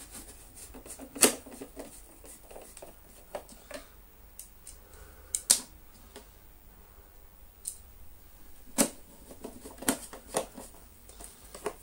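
Parts of an Electrolux Slimline 185 vacuum cleaner being handled and pressed back into place: scattered, irregular sharp clicks and knocks, the loudest about a second in and about five and a half seconds in, with several more spread through the second half.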